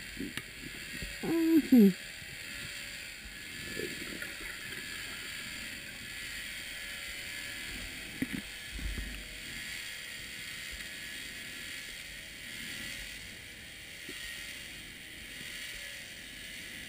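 Underwater ambience heard through a camera housing: a steady faint hiss with a few soft knocks. A short wavering hum, a diver's muffled voice through the rebreather mouthpiece, comes about a second and a half in.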